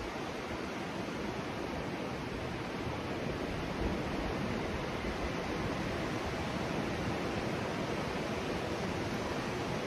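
Steady, even rushing ambient noise outdoors, with no distinct events in it.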